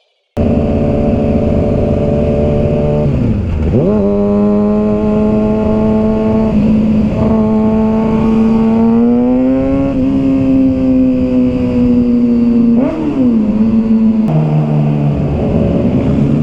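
Sport motorcycle engine running under way. Its pitch sags sharply and climbs back twice, about three and a half and thirteen seconds in, like gear changes, and rises gradually in between.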